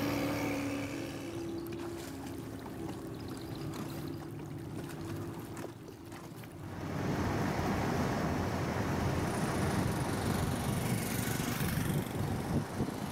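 A small boat's motor running steadily with a low hum. About halfway through, it gives way to a louder, even rushing noise.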